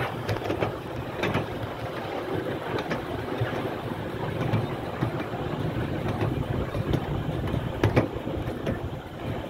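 Miniature railway carriage running along the track: a steady rumble of the wheels on the rails, with scattered clicks and knocks, a sharp one about eight seconds in, and wind on the microphone.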